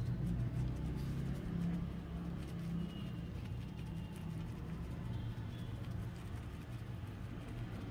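Steady low background rumble, with faint brief chirps about three and five seconds in.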